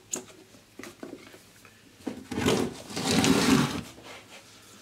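A solid-steel roller and its fan belt being handled on a frame of bench-mounted casters. A couple of light clicks come first. From about two seconds in there is a rough metallic rumble lasting about two seconds.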